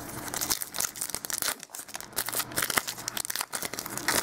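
A foil trading-card pack wrapper being torn open and crinkled by hand: a dense run of sharp crackles and rustles.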